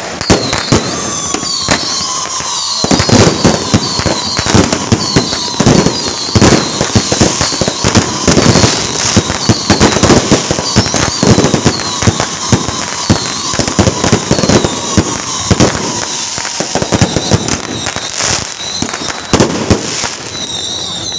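Strings of firecrackers going off in a dense, continuous crackle, with louder bangs scattered through it.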